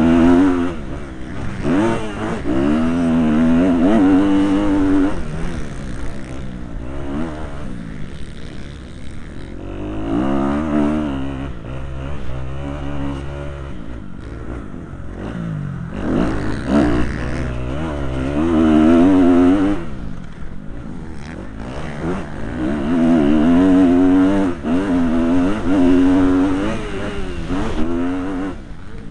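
Motocross bike engine heard close up from a helmet camera, revving hard and easing off again about four times, with quieter stretches between the bursts of throttle.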